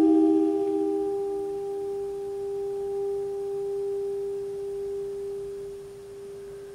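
Saxophone with live electronics: two close, nearly pure held tones. The lower one pulses and fades out within about a second and a half, and the higher one is held on, slowly dying away.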